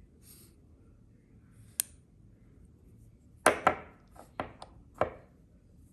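Black Mirror Designs copper magnetic fidget slider clicking as its slide snaps between the magnetic stops. One sharp click comes early, then a quick run of five louder clicks about halfway through.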